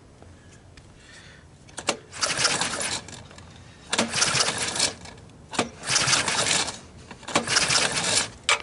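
Honda ATC 185 engine cranked over by hand four times with its spark plug out and grounded on the cylinder head, to test for spark from the stock CDI ignition. Each crank is a noisy rush of about a second that starts with a sharp click.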